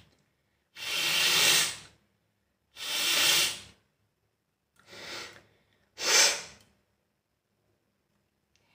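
A person blowing their nose hard four times. Each blow is a noisy blast of air, about a second long; the third is weaker than the rest.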